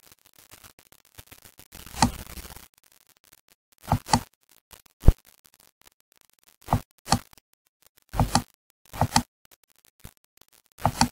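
Computer mouse clicking: a series of sharp clicks, most in quick pairs like double-clicks, with a brief rustle about two seconds in.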